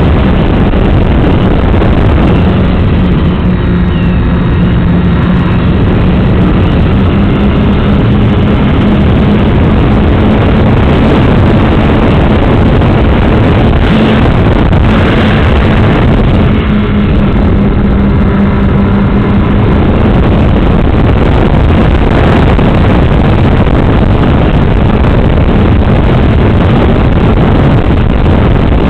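Radio-controlled model aircraft's motor and propeller running steadily in flight, heard from on board under heavy wind rush, with a drone that shifts slightly in pitch now and then.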